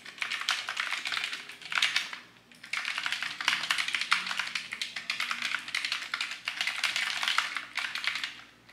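Typing on a computer keyboard: rapid runs of key clicks, with a brief pause about two and a half seconds in, stopping shortly before the end.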